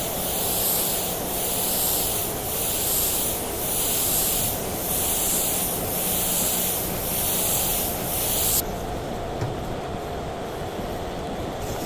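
Air-driven spray gun hissing as it sprays primer onto sheet metal, the hiss swelling and fading about once a second with each pass, then cutting off suddenly about two-thirds of the way through. A steady low rumble runs underneath.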